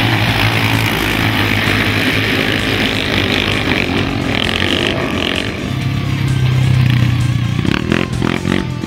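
Several racing quad engines revving hard as a pack of quads races, their notes rising and falling, with one engine note held loud and steady about six seconds in.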